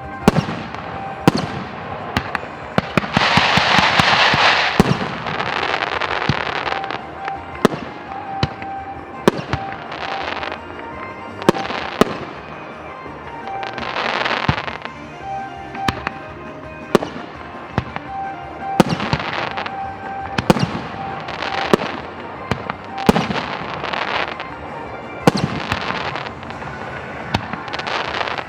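Aerial fireworks bursting in a quick series of sharp bangs, about one a second. Dense crackling hiss swells twice, about three seconds in and again around fourteen seconds. Background music plays under the bursts.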